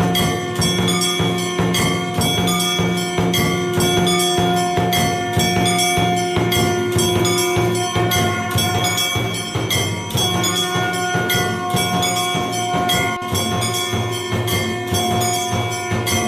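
Music with fast, steady percussion and ringing bells over long held notes.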